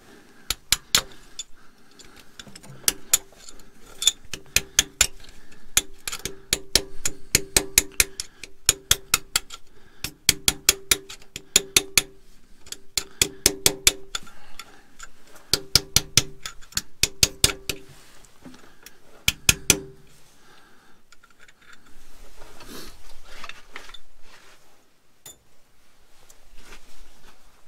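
Hammer blows on steel, in bursts of several quick strikes with a ringing metallic tone, driving a thin shim into the splined hub of a tractor's three-point-lift arm. The hammering stops about twenty seconds in, followed by fainter handling noises.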